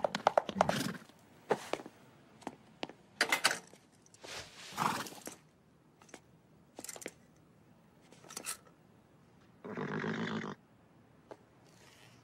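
A wild mustang horse: grunts and snorts, scattered sharp knocks, and one longer call lasting about a second near the end.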